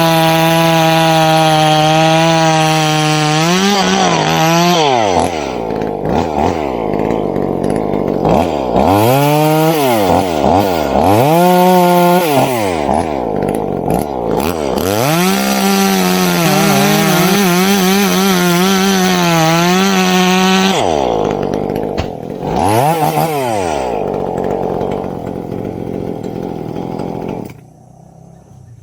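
Chainsaw at full throttle for a few seconds, then dropping back and revved up and down several times. It holds high revs again for about five seconds, drops back with one more rev, runs low and cuts out about a second before the end.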